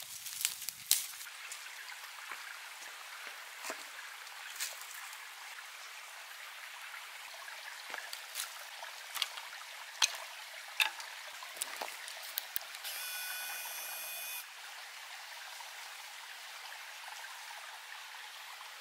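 A stream rushing steadily, with sharp clicks and cracks of dry twigs and sticks being snapped and handled, loudest about a second in and in a cluster around two-thirds of the way through. A steady high tone lasts about a second and a half just after the middle.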